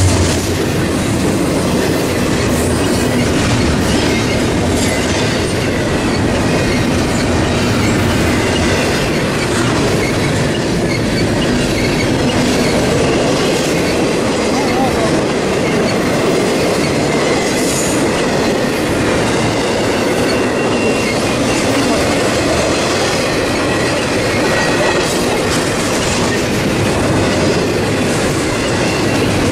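CSX double-stack intermodal freight train passing close by: a steady, loud noise of steel wheels rolling on the rails, with clacks over the rail joints and a faint, thin wheel squeal.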